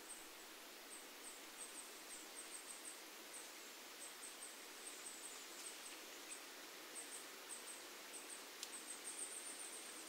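Leaves of forest trees rustling faintly and steadily in the wind, with a small bird's very high, thin chirps repeating in quick runs, busiest near the end.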